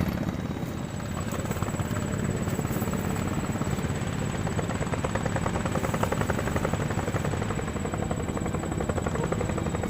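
Small engine running steadily with a rapid, even pulsing beat, and a thin high whine over it from about a second in.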